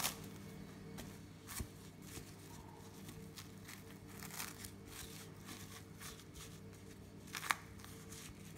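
Plastic cling film crinkling and rustling as hands press it down over a ball of dough in a wooden bowl, with a few sharper crackles, the loudest near the end. A faint steady hum sits underneath.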